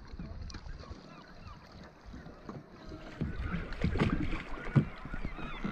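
Water splashing and lapping against a kayak's hull as it is paddled, with wind on the microphone. The sound grows louder about three seconds in, with a few low thuds.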